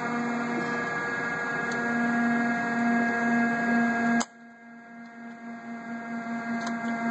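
Heald Model 271 internal grinder's hydraulic pump and motor running with a steady hum. About four seconds in it cuts off suddenly with a click, then builds back up with a pulsing hum near the end, as the hydraulics are run to purge air.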